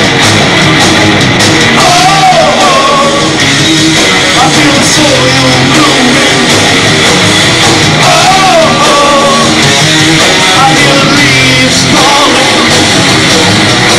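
Live doom metal band playing loud: distorted electric guitars, bass and drums, with a man singing into the microphone in phrases about two seconds in, around eight seconds in and again near the end.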